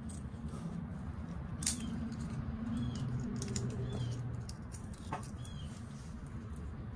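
A steel pick clicks and scrapes against the pin and handle of a pocket knife, with a few sharp clicks over a steady low hum. Faint short squeaky chirps come about once a second.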